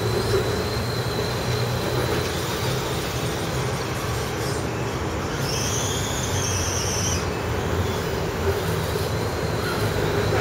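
Steady low rumble of passing vehicles. About halfway through, a high whine rises and falls over a couple of seconds.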